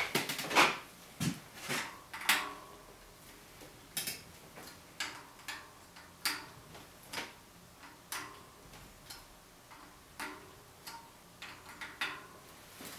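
A hand tool turning out the bolts of a bicycle's 6-bolt disc brake rotor: short metallic ticks and clinks at irregular spacing, about one or two a second, some with a faint ring after them.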